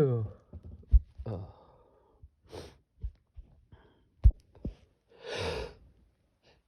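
A person breathing and sniffling between sneezes: the falling tail of a sneeze right at the start, then a few short sniffs and small clicks, and a longer breathy sigh about five seconds in.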